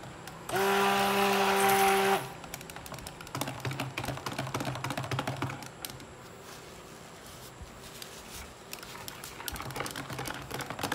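Immersion stick blender pulsed in cold process soap batter: the motor spins up and runs with a steady hum for about a second and a half, then stops. After that the blender is stirred through the batter by hand, with light clicking and tapping against the plastic bowl. The batter is being brought to a light trace.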